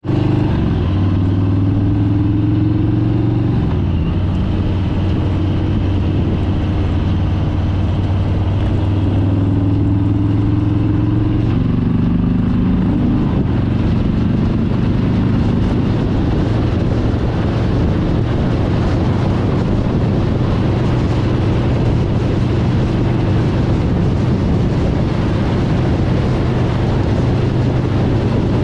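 Motorcycle engine running under way on the highway, its pitch changing in steps twice in the first twelve seconds as the gears change. Wind rush over the bike grows steadily as it holds speed.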